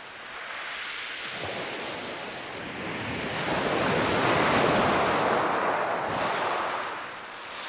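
Sea waves breaking and washing on a shingle beach, the surge building to its loudest about halfway through and easing off near the end, with some wind on the microphone.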